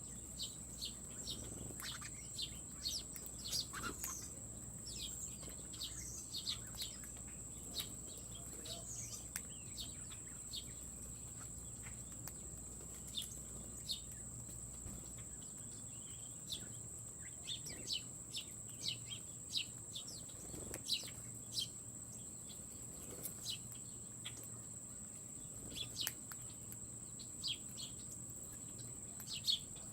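Small songbirds chirping at a feeder: many short, high, downward-sliding chirps, irregular and overlapping. Underneath runs a steady, thin, high-pitched tone.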